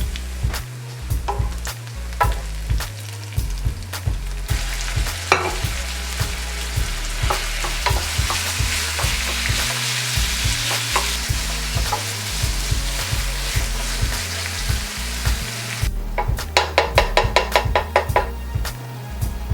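Food sizzling in oil in a frying pan as it is stir-fried, with the clicks of a spatula against the pan. The sizzle swells about four seconds in, then gives way near the end to a quick run of taps.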